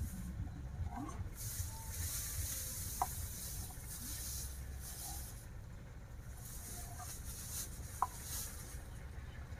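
A steel knife cuts down through a soft block in a stainless-steel bowl. Its blade strikes the bowl with two short metallic clinks, about three seconds in and again about eight seconds in, over a low steady rumble.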